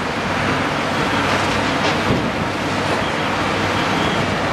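CAT 320DL excavator's diesel engine running steadily under load as the machine swings its boom and bucket, over a steady rushing noise.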